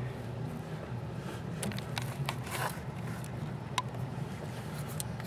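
Small clicks, ticks and a brief scratchy rustle from a hand-held camera being moved around under a dashboard, over a steady low hum.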